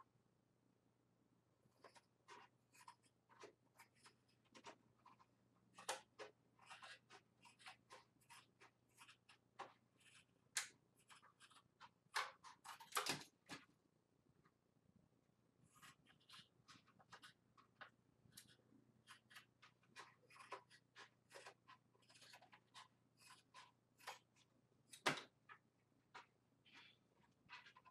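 Craft shears snipping through a sheet of Worbla thermoplastic, a long run of short snips with a pause of about two seconds midway.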